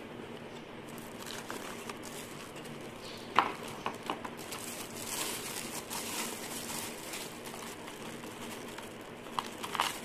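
Clear plastic wrapping crinkling and rustling as a keypad access-control unit is pulled out of its bag and box. There is a sharp tap about three and a half seconds in and a few more near the end.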